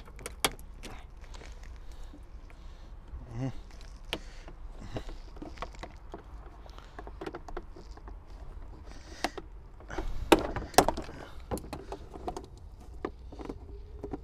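Irregular clicks and knocks of a Land Cruiser's plastic interior trim being handled and refitted, with a louder run of knocks about ten to eleven seconds in.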